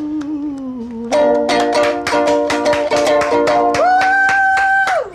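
A voice singing with a strummed ukulele. A held note slides down, rapid ukulele strumming starts about a second in, and a long high sung note near the end closes the phrase, stopping abruptly.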